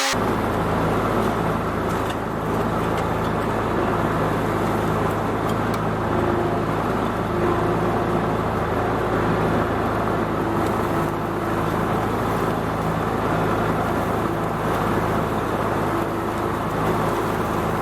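Grasshopper zero-turn riding mower's engine running steadily under power, to test a taped-up discharge chute.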